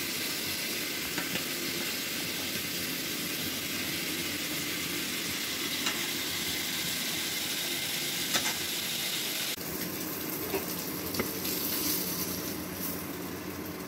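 Rohu fish pieces shallow-frying in oil on a tawa: a steady sizzle with a few scattered crackles and pops.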